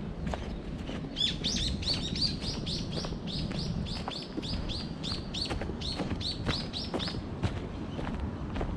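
A songbird calling a quick run of short, high chirps, about four a second, starting about a second in and stopping near the end.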